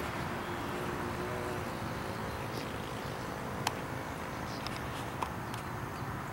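Steady outdoor background noise with a faint, steady hum like a distant motor, and a couple of sharp clicks in the second half.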